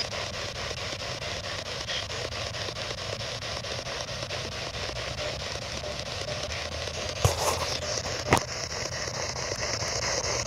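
P-SB11 spirit box (ghost box) sweeping through radio stations, giving a steady rush of static finely chopped by the rapid sweep. Two sharp clicks come about seven and eight seconds in.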